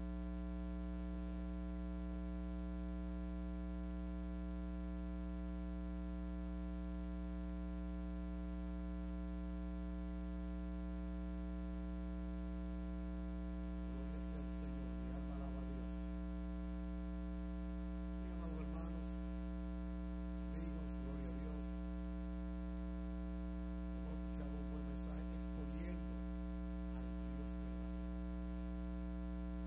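Steady electrical mains hum, a low buzz with a stack of overtones that never changes. Faint, indistinct speech comes in from about halfway through.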